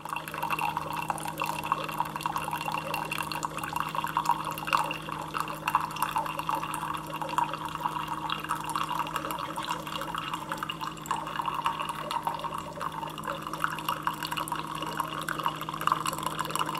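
Keurig single-serve coffee maker brewing: a thin stream of coffee pouring and splashing into a mug, with a steady low hum underneath.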